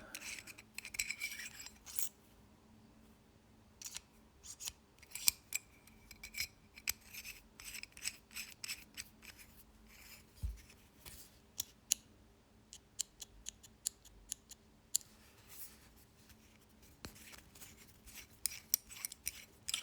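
Brass mechanical pencil with a Schmidt mechanism being handled and worked: many small, irregular metal clicks and short scrapes. The pencil is not working and is being checked to find the fault.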